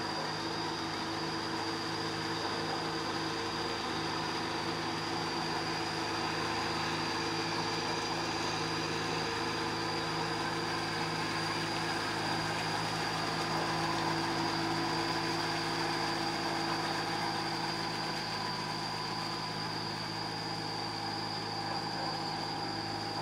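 Diesel farm tractor engine running steadily while working a flooded rice paddy, an even hum that holds its pitch throughout.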